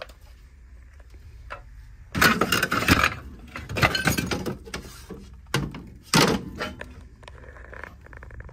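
Clatter and knocking of old objects being moved and shifted while rummaging through junk: two dense bursts of rattling about two and four seconds in, then a couple of single knocks.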